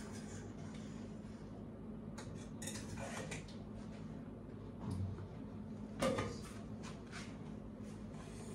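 Quiet kitchen handling sounds: a few scattered clinks and knocks of dishes and utensils, with a duller thump about five seconds in and a sharper knock about a second later, over a low steady hum.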